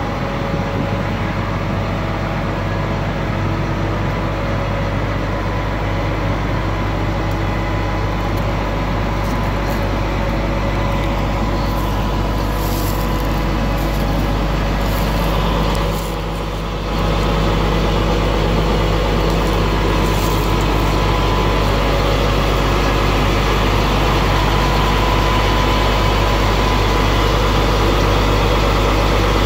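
Flatbed tow truck's engine idling steadily, with a brief dip in loudness about halfway through.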